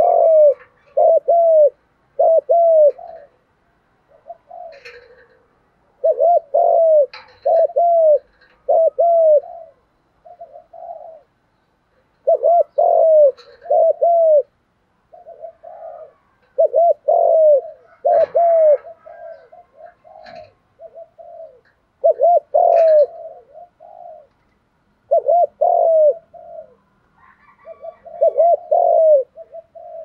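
Spotted dove cooing loudly at close range: phrases of three or four hollow coos, each note rising and falling, repeated every few seconds.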